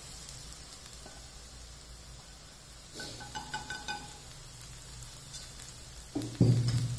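Carrots and green peas frying in a pan, sizzling steadily as crumbled bread is tipped in from a plate, with a few light clicks and scrapes about three seconds in and a louder thump near the end.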